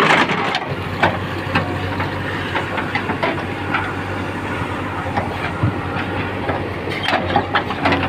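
JCB 3DX backhoe loader's diesel engine running under load while the rear bucket digs around a tree stump, with repeated knocks and scrapes of the bucket against soil and wood.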